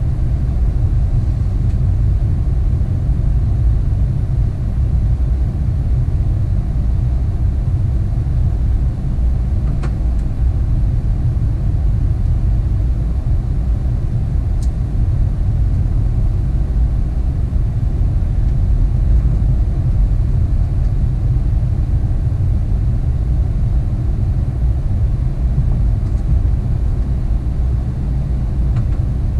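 Steady low rumble in the cockpit of an Airbus A380 taxiing, the engines at idle along with the cockpit's air and rolling noise. A couple of faint clicks come about ten and fifteen seconds in.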